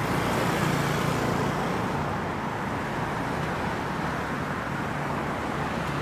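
Street traffic: a motor vehicle's engine hum and tyre noise, loudest in the first two seconds or so, then settling into a steady wash of road noise.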